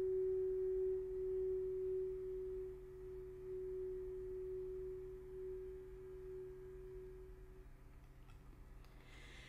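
Background music: one long held note that slowly fades away and ends about eight seconds in, leaving a faint low hum.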